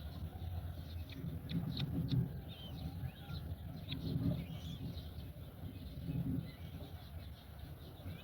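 Birds calling at a nest: faint high chirps among low repeated sounds every couple of seconds and scattered sharp clicks.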